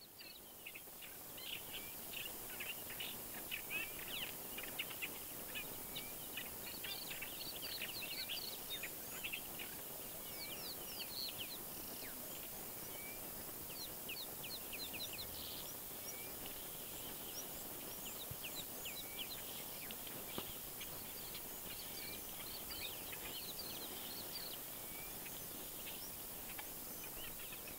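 Wild birds chirping and calling in many short, quick notes, busiest in the first half, over a faint steady hiss.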